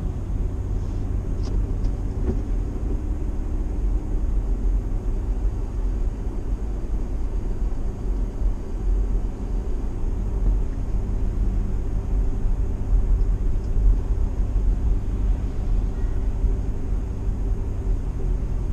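Steady low rumble of a vehicle's engine and road noise heard from inside the cab while driving at an even pace.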